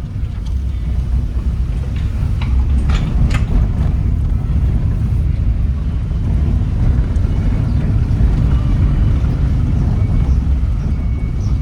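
Steady low rumble of a moving boat's engine with wind buffeting the microphone.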